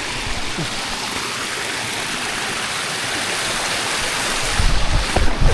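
Waterfall rushing steadily, heard close up as a loud, even hiss of falling water. Near the end, heavy low buffeting thumps come in over it.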